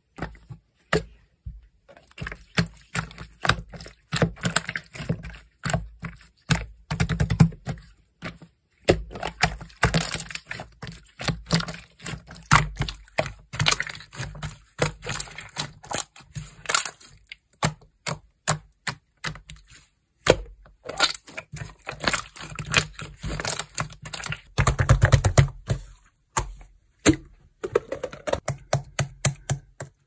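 Hands squeezing and pressing a bubbly clear green slime: rapid crackling clicks and pops in runs, with short pauses between them.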